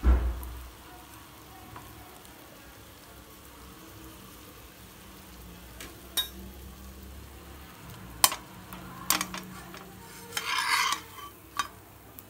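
A slice of bread frying in a little oil in a pan, with a faint steady sizzle. A heavy thump at the very start, then a few sharp clicks of a steel spatula against the pan, and a brief scraping rush near the end as the spatula slides under the slice to turn it.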